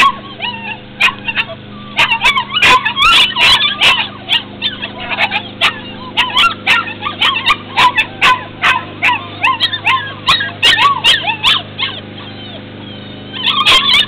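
Dogs yipping and whining in quick high-pitched calls, several a second, with a short pause near the end; a steady low hum runs underneath.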